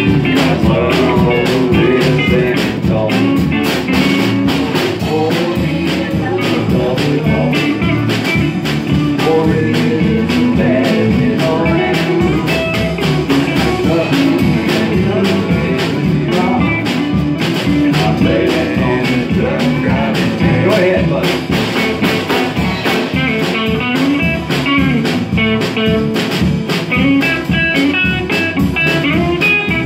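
Small live country-blues band playing: electric guitar and acoustic guitar with a woman singing. In the last few seconds the guitar picking comes forward with quick repeated bright notes.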